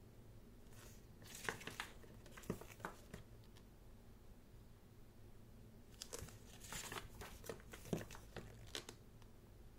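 Pages of a thick photobook being turned, with faint paper rustles and small flicks in two bouts, about a second in and again from about six seconds in.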